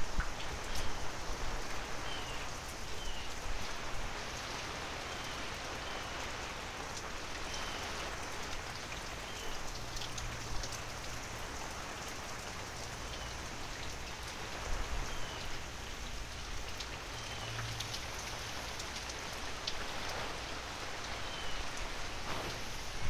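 Steady heavy rain pouring down, an even hiss of falling water.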